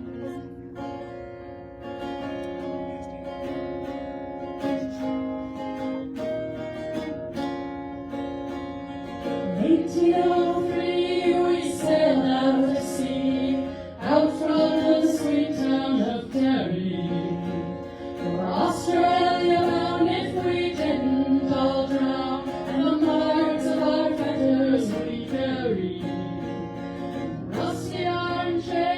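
A song begins with a plucked string instrument playing an introduction. Several voices come in singing together about ten seconds in.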